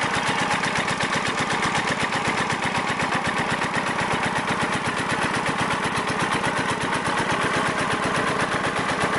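Single-cylinder horizontal water-cooled diesel engine running steadily, driving a water pump, with a rapid, even chugging beat.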